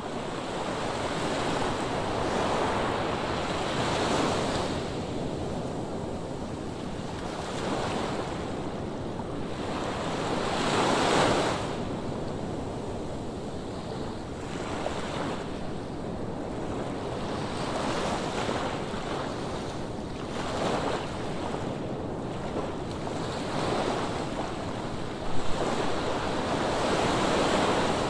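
Ocean surf breaking on the shore: a continuous wash that swells as each wave comes in every few seconds, with wind buffeting the microphone. A brief sharp bump comes near the end.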